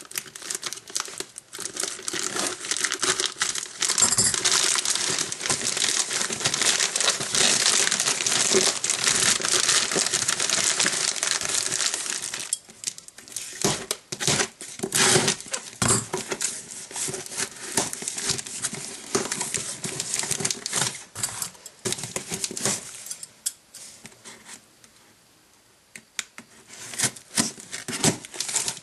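Plastic mailing bag crinkling and tearing as it is cut open with scissors and pulled off a parcel, dense for about the first twelve seconds. Then sparser snips, scrapes and clicks as scissors slit the packing tape along a cardboard box's seam and the flaps are handled, with a short lull near the end.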